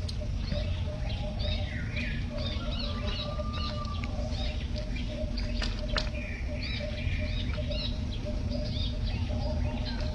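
Outdoor ambience of many short, high-pitched chirps and squeaks repeating irregularly, over a steady low rumble and a faint steady hum, with one sharp click about six seconds in.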